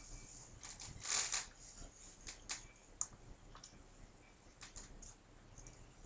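Faint computer mouse clicks while scrolling through a software gallery: a brief soft rustle about a second in, then a handful of scattered sharp clicks.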